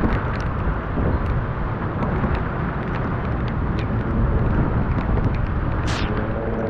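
Tropical-storm wind buffeting the microphone with a steady low rumble, scattered sharp ticks and a brief hiss about six seconds in.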